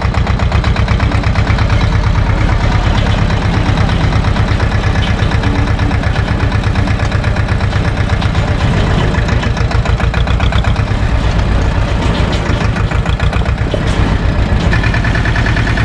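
Small SAME tractor's diesel engine running steadily as the tractor drives along a stony dirt road, its exhaust beating in a fast, even pulse.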